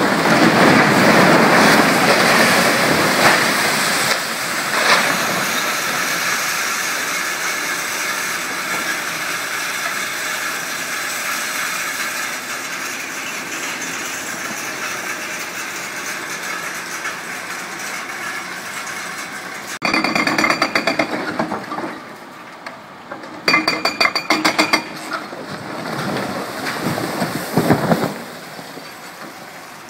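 A section of concrete building collapsing under demolition: a loud crash and rumble of falling concrete and rubble that slowly dies away over many seconds. Then an excavator's hydraulic breaker hammers the wreckage in three short bursts.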